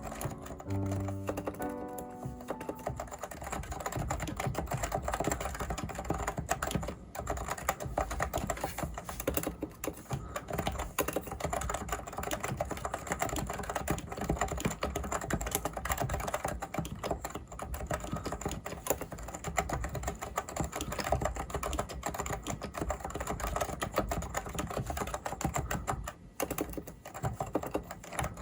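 Continuous fast typing on a Leopold FC660C keyboard with Topre electrostatic capacitive switches, a dense run of keystrokes with no pauses. Background music fades out in the first couple of seconds.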